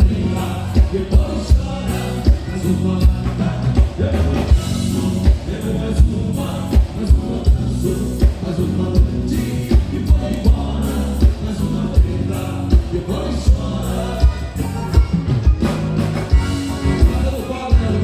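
Live band playing gaúcho regional dance music over a PA, with singing and a steady kick-drum beat about twice a second.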